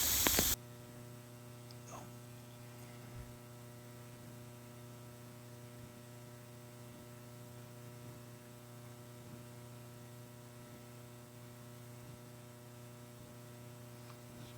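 A loud rushing hiss cuts off abruptly within the first second, leaving a faint, steady electrical hum for the rest, with a couple of tiny ticks.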